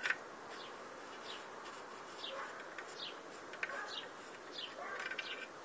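A bird calling: a run of short chirps that slide down in pitch, about one every half second, with a few faint clicks among them.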